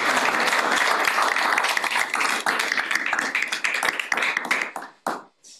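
A small group of people applauding; the clapping dies away about five seconds in.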